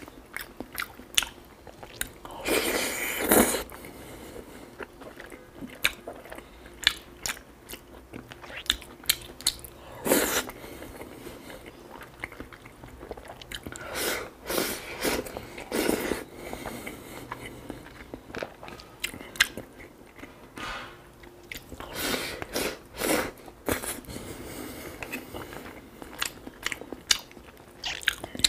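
Close-miked mukbang eating sounds: a person chewing braised pork belly and rice, with many short sharp mouth clicks and a few longer, louder stretches of chewing.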